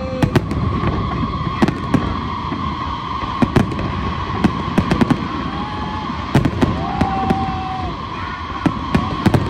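Aerial fireworks display: shells bursting in a rapid, irregular run of sharp bangs over a continuous rumbling crackle, with a steady high tone running underneath.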